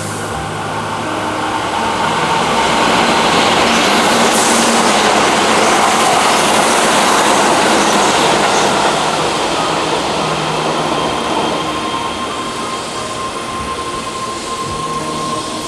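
Keihan 5000 series electric commuter train passing close by: its running and wheel noise rises as it approaches, peaks as the cars go past about halfway through, then fades as it moves away.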